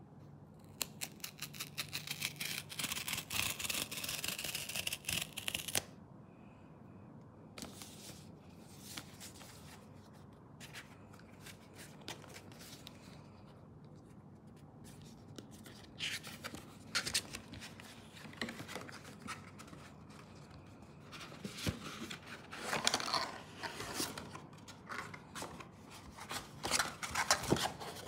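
Packaging of a Suunto Race S watch being opened and handled by hand: a fast run of crackling clicks for the first few seconds, then quieter rustling and scraping, with busier rustling and clicks again in the second half.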